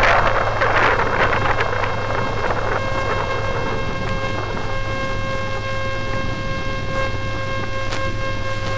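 Steady whine of an RC airship's electric propeller motors running at constant speed, a held tone with overtones, with air rushing over the onboard microphone that eases off after the first couple of seconds.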